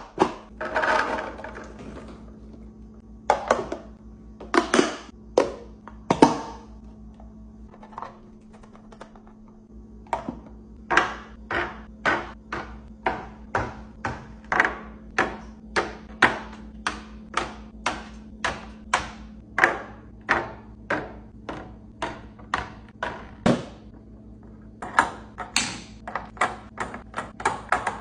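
Containers and food items being set down and arranged inside a refrigerator, making a string of sharp clicks, taps and knocks. They come at about two a second from around ten seconds in, over a steady low hum.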